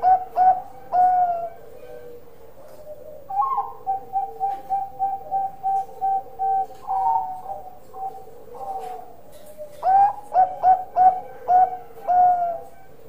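Caged zebra dove (Bangkok-type perkutut) singing its cooing song. A phrase of quick, loud coo notes ends on a longer note. Then comes a long run of short, even coos about two a second, and near the end another loud phrase of quick notes closing on a drawn-out coo.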